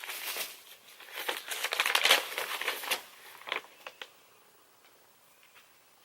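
Paper rustling and crinkling as a letter is handled, in irregular bursts with a few sharp crackles, dying away about four seconds in.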